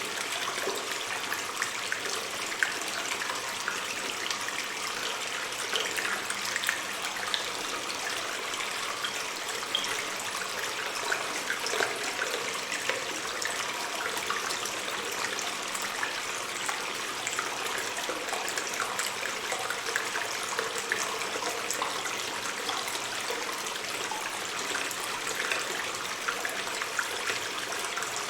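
Water stream trickling and splashing in a cave, a steady rush with many small drips and plops, slightly echoing.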